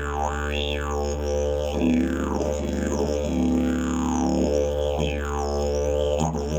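Hemp-canvas slide didgeridoo played as a continuous low drone on one steady pitch. Mouth shaping sweeps the overtones up and down about once a second, giving a rhythmic wah-like vowel pattern.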